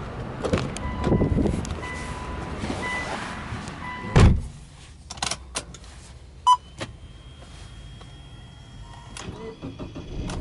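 Cabin sounds of a 2005 Subaru Legacy B4 before its engine is started: a warning chime beeps about once a second while the driver's door is open, then the door shuts with a loud thump about four seconds in. A few clicks and a single beep follow as the ignition is switched on, then a faint steady high whine.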